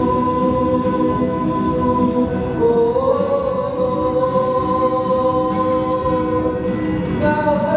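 A man singing long held notes over acoustic guitar strumming; the sung pitch steps up about two and a half seconds in and holds there, then moves again near the end.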